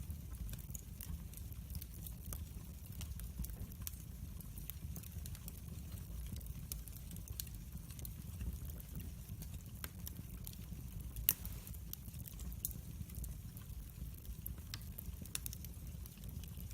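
Wood fire burning in a fireplace: a steady low rumble of flames with irregular sharp crackles and pops, one louder pop about eleven seconds in.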